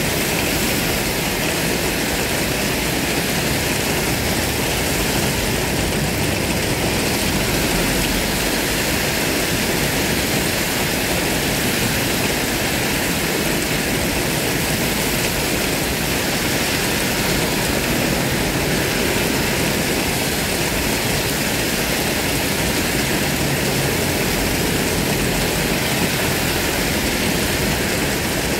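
Heavy rain pouring down on a road, a steady hiss, mixed with the tyres of passing cars on the wet road.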